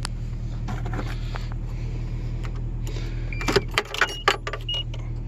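Ford Ranger pickup's engine running with a steady low hum. A few clicks and rattles come about three and a half seconds in, and a short, high vehicle warning chime starts repeating near the end.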